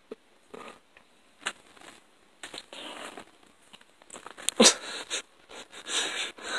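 Rustling and shuffling handling noises of bedding, with a short loud sound a little after halfway.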